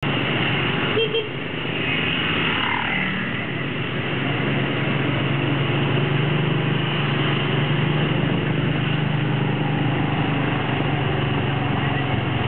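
Steady engine hum and road noise from riding in a vehicle through motorbike-heavy city traffic. A short high beep sounds about a second in.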